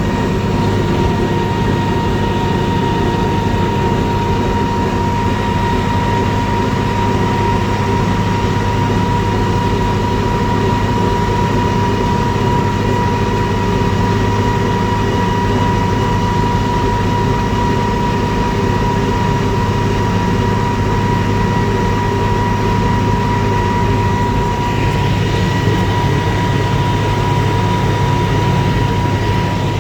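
MB-trac 1300 tractor's turbocharged six-cylinder diesel running steadily under way, heard from the cab: a constant low drone with a thin, steady high whine over it.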